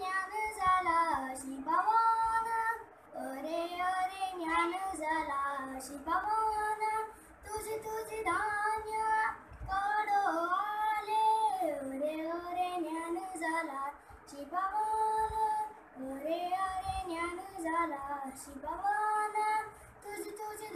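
A boy singing a devotional song solo, in long held, wavering phrases broken by short pauses for breath.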